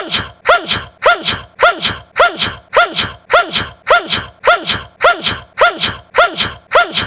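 A young man's sneeze, the same short sneeze looped over and over at about two a second. Each one is a brief pitched catch of breath that breaks into a hissing burst.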